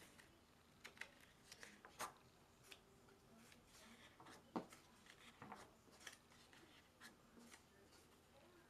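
Sketchbook pages turned and handled: faint, scattered paper rustles and soft ticks, the sharpest about halfway through.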